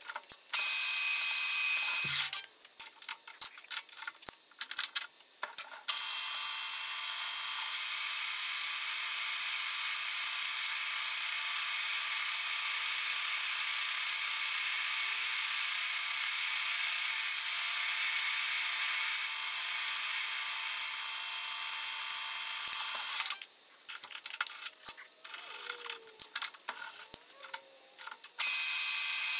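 Metal lathe running with a steady high whine: a short run about half a second in, a long run from about six seconds to about twenty-three seconds, and a restart near the end. Between the runs, light clicks and knocks of tools being set on the lathe's tool post.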